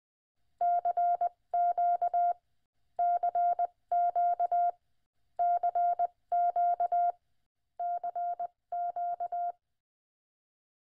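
Morse code beeps: a single steady pitch keyed on and off in quick dots and dashes. There are eight short runs, grouped in pairs, and the last pair is a little quieter.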